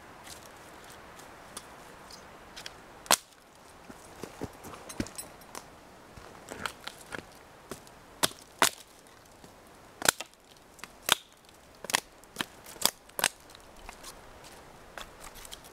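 Fallkniven A1 fixed-blade knife chopping into a weathered dead log: about a dozen sharp, irregularly spaced chops, starting about three seconds in.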